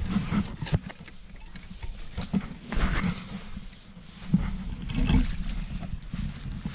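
Dry brush and dead leaves crackling and rustling as someone pushes through undergrowth, with scattered sharp snaps and irregular low rumbling bumps of handling noise on a body-worn camera's microphone.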